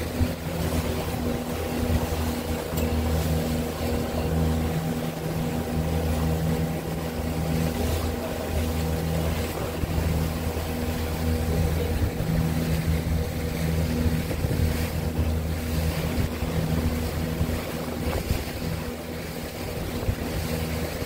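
Small motorboat's engine running steadily under way, with a constant hum, over the rush of wind and water.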